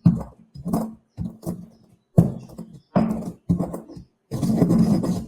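Black peppercorns being ground by hand: a string of short grinding strokes, ending in one longer grind.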